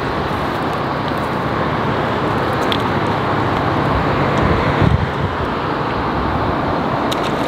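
Steady outdoor noise of wind on the microphone and distant road traffic, with a brief low bump a little before five seconds in.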